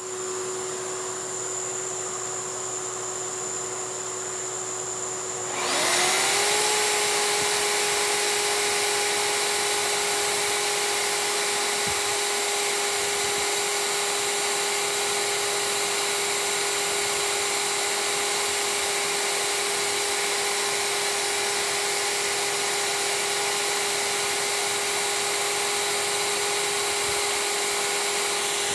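Plunge router running with a vacuum hose on its dust port, a steady high whine, while it routs out a shallow inlay recess in poplar. About six seconds in, a second motor spins up with a quick rising pitch, and the sound gets louder and stays steady.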